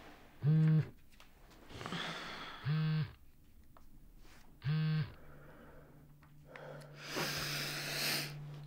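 Mobile phone buzzing on vibrate: three short, evenly spaced buzzes about two seconds apart, an incoming call. A steady low hum takes over about five seconds in, with soft rustling near the end.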